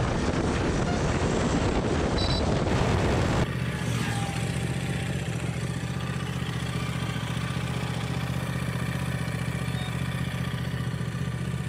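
Royal Enfield Continental GT650's parallel-twin engine running steadily while riding, with heavy wind noise on the microphone at first. About three and a half seconds in there is a cut to a quieter, even engine hum with little wind.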